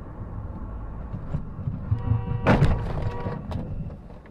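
Steady road and engine rumble from a vehicle, then a sudden loud impact about two and a half seconds in, typical of a car collision, with a steady pitched tone sounding for about a second around it.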